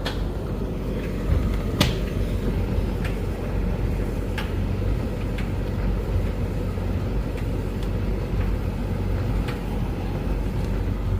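Hoover VTC5911NB vented tumble dryer running, a steady low rumble and hum from the turning drum and fan, with a few light clicks scattered through it.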